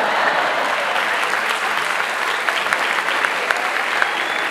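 Audience applauding steadily, a round of clapping in answer to a comedian's punchline.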